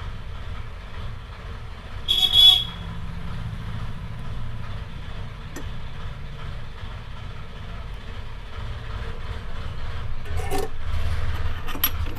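A vehicle horn honks once, briefly, about two seconds in, over a steady low traffic rumble. A few light clicks near the end.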